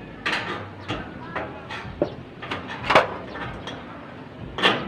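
Irregular knocks and scraping from handwork on a metal wall frame and sheeting, the sharpest knock about three seconds in, with faint voices in the background.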